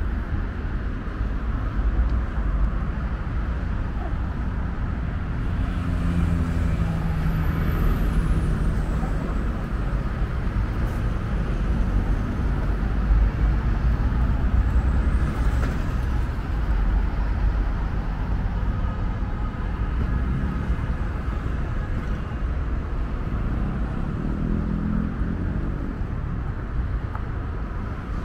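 City street traffic: a steady rumble of cars and other road vehicles passing. Two faint high whines fall in pitch, about eight and fifteen seconds in.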